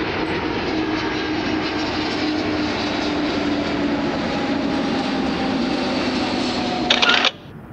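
Jet airliner flying over at cruising height: a steady rush of distant engine noise with faint tones that slowly fall in pitch. Near the end there is a brief louder rush, then the sound cuts off suddenly.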